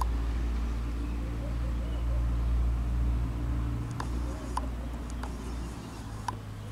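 Low rumble of a passing vehicle, swelling and then fading away, with a few sharp ticks about four seconds in and near the end.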